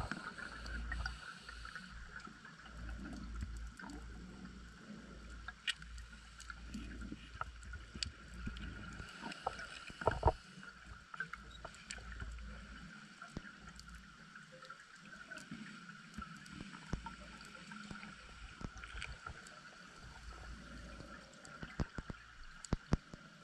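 Underwater sound picked up by a diving camera in its housing: a low rumble that comes and goes, a steady high hum, and scattered sharp clicks, the loudest about ten seconds in. The rumble fades after the first half.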